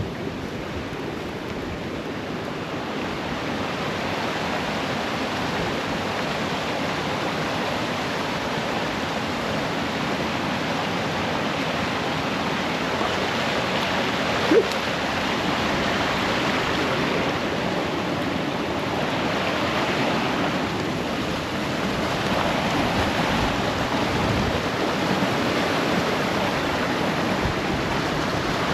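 Steady rushing noise like flowing water, growing slightly louder, with one brief sharp click about halfway through.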